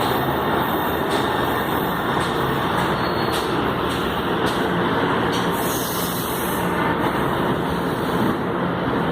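Metro train running at a station: a steady mechanical rumble and hiss, with a faint hum joining in about halfway through.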